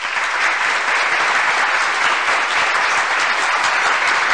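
Steady, dense applause from a crowd, many hands clapping at once.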